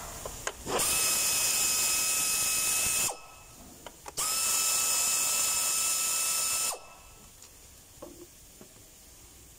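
Two blasts of compressed air from a hand-held air blow gun on a hose, each a loud hiss with a steady whistle through it, lasting about two seconds, with a short gap between them.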